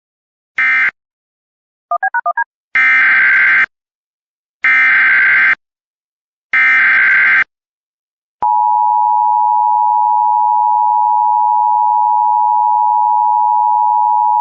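Emergency Alert System data tones: the last of the short end-of-message bursts, a quick run of small beeps, then three one-second SAME header data bursts. About eight seconds in, the steady two-tone EAS attention signal (853 and 960 Hz together) starts with a click and holds loud and unchanging.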